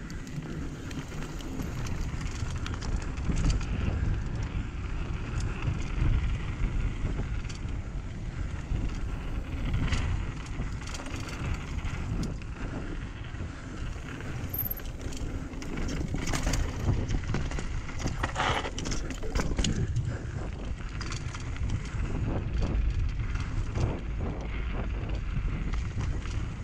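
Mountain bike riding down a rocky dirt trail: a continuous rumble of tyres rolling over dirt and stones and of wind on the microphone, with frequent short clicks and rattles from the bike as it goes over rough ground.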